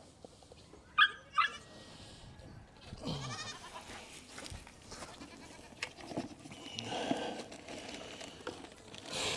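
Goat bleating: two short, loud bleats about a second in, then another, falling call around three seconds in.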